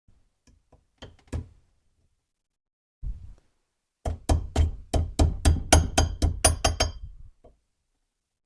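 Brush washer being tapped into its bore in a Kurt machine vise body with a hammer: a few light taps, then a quick run of about fifteen sharp taps at roughly five a second, drawing it into place.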